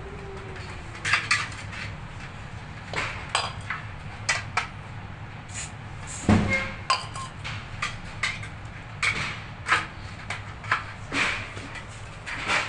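Irregular metallic clinks, knocks and short scrapes of a metal shower-enclosure frame rail being handled and fitted, with a heavier knock about six seconds in.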